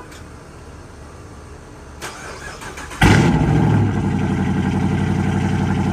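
Car engine cold start: about two seconds in the starter cranks for roughly a second, then the engine catches about three seconds in with a loud flare of revs and settles into a steady high idle.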